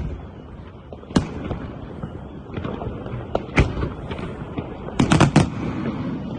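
Aerial fireworks display: sharp shell bursts over a continuous rumble and crackle. There is a single bang about a second in, another about halfway, and a quick run of four bangs near the end.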